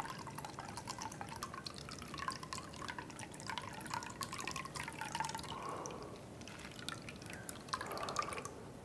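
Liquid trickling and dripping with many light clicks of ice, as a shaken cocktail is strained out of a cocktail shaker into a glass.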